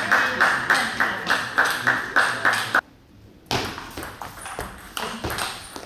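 A plastic table tennis ball bouncing repeatedly at a steady pace, about three pings a second. The sound cuts out for about half a second, then comes back as fainter, irregular ball strikes of a rally.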